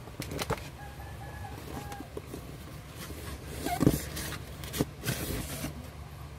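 Cardboard packaging rustling and knocking as a high-pressure PCP hand pump is handled and lifted out of its box, with a loud thump shortly before four seconds in and a burst of cardboard scraping a little after five.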